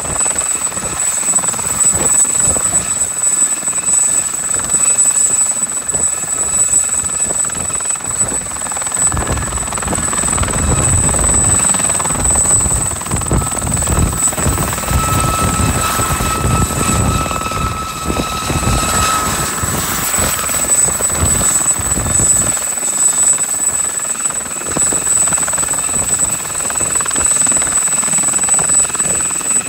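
A Gazelle SA342J helicopter hovering, its Turbomeca Astazou XIVH turboshaft running at hover power just after a compressor wash. The turbine's steady high whine rides over the main rotor's chop, with a stretch of heavier low thumping in the middle.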